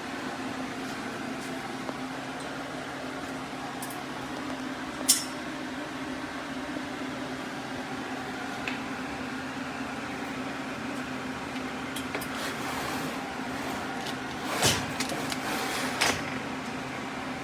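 Steady mechanical hum, like a fan or appliance running, with a single sharp click about five seconds in and a few knocks near the end.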